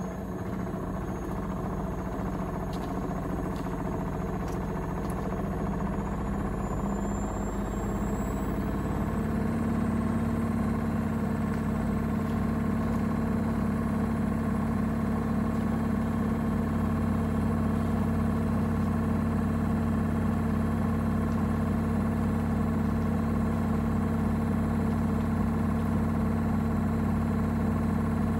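Gorenje UseLogic front-loading washing machine on its spin cycle. The drum and motor whine climb in speed for the first eight or nine seconds, then hold steady and a little louder at the higher spin speed.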